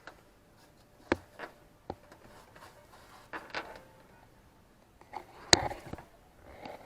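A few scattered light clicks and knocks with brief rustling as things are handled in a yacht's engine compartment; the loudest knock comes about five and a half seconds in.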